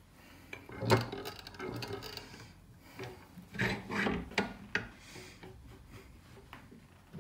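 Metal clunks and scraping as a bolt with a nut and lock washer is set into the jaws of a steel bench vise and clamped. A sharp knock about a second in is the loudest, and a cluster of knocks comes around four seconds.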